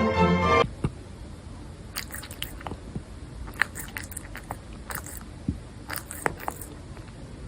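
Chewing: crisp crunches and clicks in irregular clusters.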